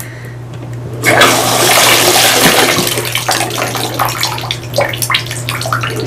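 Water sloshing and splashing in a bathtub as hands swish soapy silicone fidget toys around, starting suddenly about a second in and going on with many small splashes.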